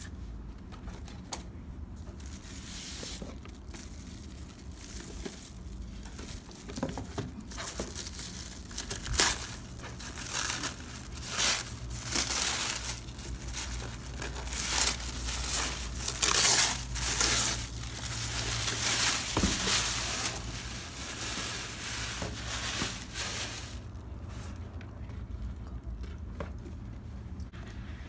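Tissue paper crinkling and tearing as it is unwrapped from a boxed doll, in irregular bursts that are loudest through the middle and die down near the end.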